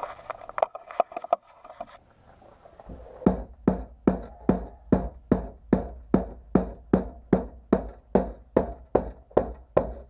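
Mallet blows on the bent lip of an SUV's rear liftgate, hammering it back out: a few light taps, a pause, then steady strikes about three a second, each with a short ring.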